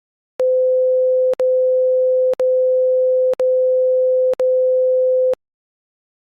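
A single steady electronic tone at one mid pitch, held for about five seconds, broken by a short click about once a second. It starts about half a second in and cuts off suddenly.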